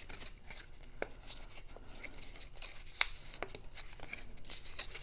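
Cardstock being folded and creased along its score lines by hand, with faint rustling and a few crisp snaps of the card, the sharpest about three seconds in.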